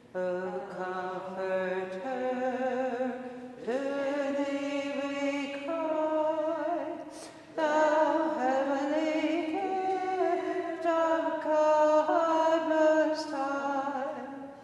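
Benedictine nuns singing a chant-like hymn unaccompanied, in sung phrases with short breath pauses between them.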